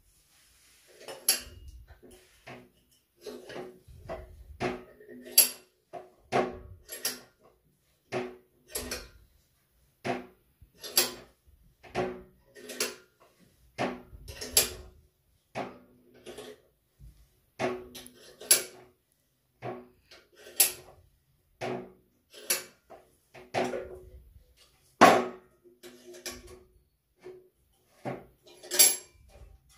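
Steel bench vise being tightened by hand: the sliding handle bar clanks against its end stops with each turn, giving a string of sharp metallic knocks, about one or two a second, each with a short ring.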